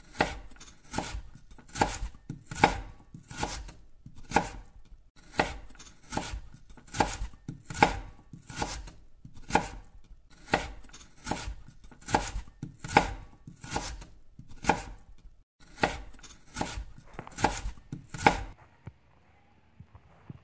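Knife chopping mustard greens on a board: steady, evenly spaced strokes, about two a second, stopping near the end.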